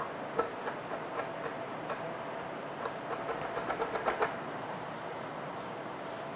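Chef's knife chopping fresh herbs on a wooden cutting board: light, quick knocks of the blade on the wood, a run in the first two seconds and a denser flurry around the fourth second, then stopping. A steady hum runs underneath.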